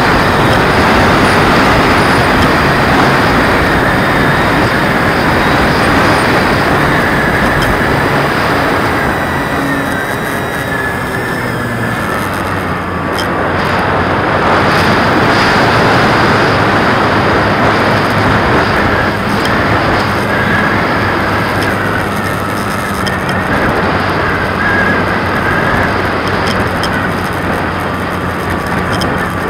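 RC Extra 300 model plane heard from a camera mounted on it: the motor and propeller run continuously under heavy wind rush. A faint whine dips and rises as the throttle changes through the manoeuvres.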